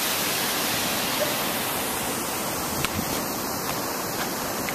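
Fountain water cascading down a stone wall into a shallow pool: a steady, even rush.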